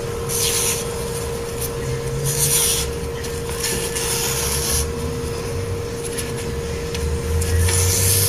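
Motor-driven abrasive sharpener running with a steady hum while a dagger blade is pressed against it in four hissing grinding passes of about a second each.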